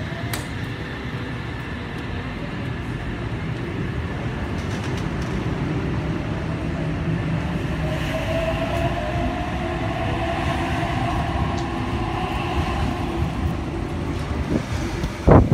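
Sydney Trains OSCAR (H set) electric multiple unit pulling out alongside the platform, its carriages rumbling past on the rails with a motor whine rising in pitch as it picks up speed. A sudden loud knock right at the end.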